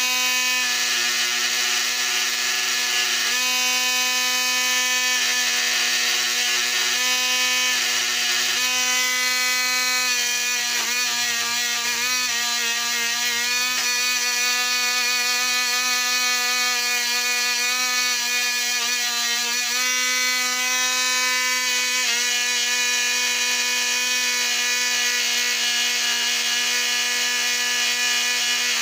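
Lionel 1065 locomotive's electric motor running steadily on transformer power: a constant motor hum with a rough buzz over it. Its tone shifts a few times and wavers briefly about halfway through.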